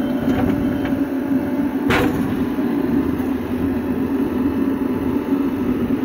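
Diesel engines of a Mahindra tractor and a JCB 3DX backhoe loader running steadily, with a single sharp knock about two seconds in.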